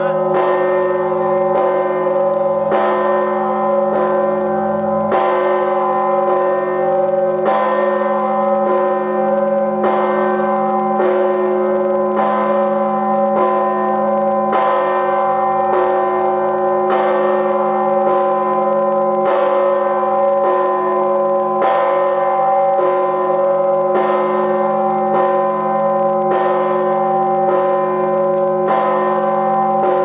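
Orthodox monastery bells ringing with a 7,150 kg great bell among them. Heavy strokes come about every two and a half seconds, lighter strokes fall between them, and the tones hang on and overlap.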